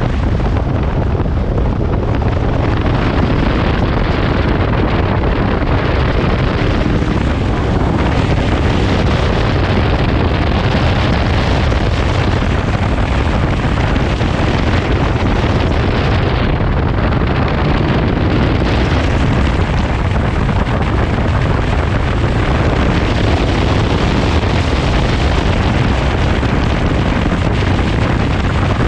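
Wind buffeting the microphone of a camera mounted on a KTM 1290 motorcycle riding at about 60 to 85 km/h, with the bike's engine running under it: a steady, heavy low rumble.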